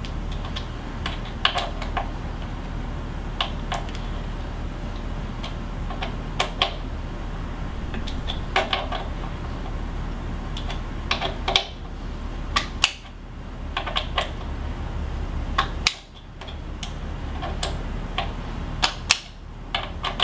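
A 5 newton-metre preset torque wrench clicking as it reaches its set torque on the handlebar stem faceplate bolts, which are tightened in turn in a crisscross. The clicks come in short groups of two to four, every second or two, over a low steady hum.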